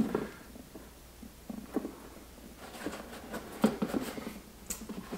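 Handling noise from an EVA plastic goose decoy and its plastic stake being fitted together: a sharp knock right at the start, then scattered faint taps, clicks and rubbing.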